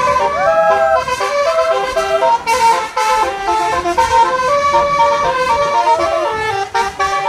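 A bus's Basuri multi-tone 'telolet' horn playing a fast tune of stepped notes, with a couple of notes bending up and down in pitch.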